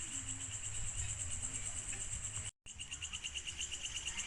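Crickets chirping in a steady chorus of fast, even pulses. The sound drops out completely for a moment about two and a half seconds in.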